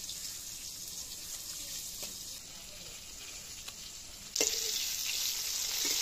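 Faint scraping of chilli paste on a grinding stone, then, about four seconds in, the sudden steady sizzle of ilish (hilsa) fish pieces frying in hot oil in an iron wok.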